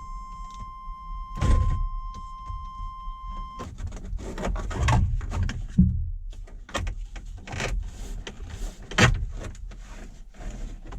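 Dashboard trim of a Chevrolet Suburban being pried and pulled off: a run of irregular clicks, knocks and scraping rustles. A steady high beep sounds through the first three and a half seconds, then stops.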